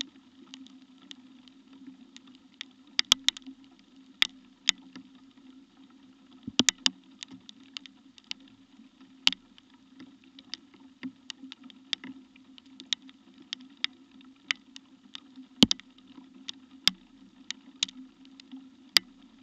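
Rain falling, picked up by a trail camera: irregular sharp ticks of single drops hitting close to the microphone, a few much louder than the rest, over a steady low hum.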